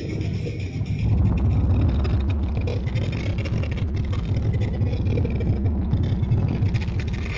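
A deep, steady rumble with scattered crackles, growing louder about a second in.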